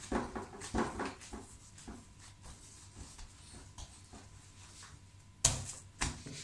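Irregular soft scuffing and knocking as dough is rolled and handled by hand on a marble counter, with one sharp, loud knock about five and a half seconds in.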